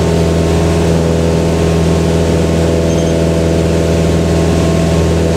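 Single-engine light aircraft's piston engine and propeller running steadily at take-off and climb power, heard from inside the cockpit as an even, loud drone with no change in pitch.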